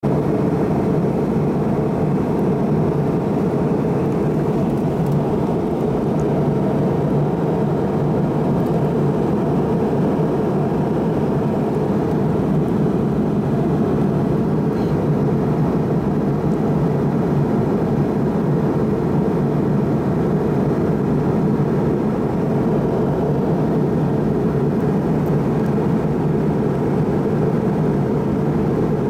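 Steady cabin noise of a McDonnell Douglas MD-88 airliner in flight on approach: an even rush of jet engine and airflow noise, heaviest in the low range, with a faint steady tone above it.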